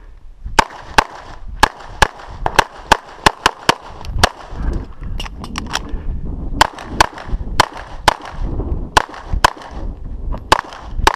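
CZ 75 SP-01 9mm pistol firing a fast string of shots, mostly in quick pairs. About halfway through there is a pause of about two seconds, then the pairs resume.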